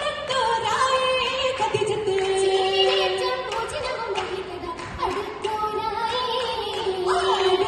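Oppana song: girls' voices singing a Mappila folk tune together in held, wavering lines, over rhythmic hand claps.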